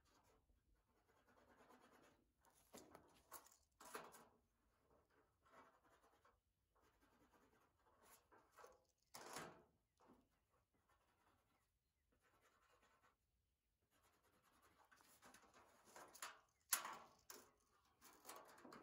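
Faint, intermittent scratching as cut lines are marked on a sheet of old corrugated iron, with a sharper click about three-quarters of the way through.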